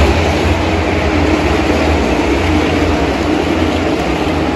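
A field of NASCAR Cup Series stock cars racing past, their V8 engines blending into a steady, loud rumble.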